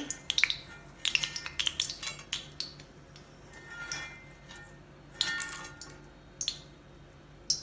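A metal spoon clinking and scraping against an iron wok of hot coconut oil as fried curry leaves are scooped out, a few sharp knocks with a brief metallic ring twice.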